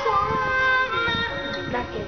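Music: a pop ballad whose melody line slides between notes and holds one note for about half a second.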